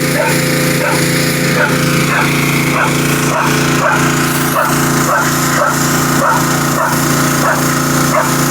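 A dog barking repeatedly, about two to three barks a second, over a loud steady machine hum, the noise it is reacting to.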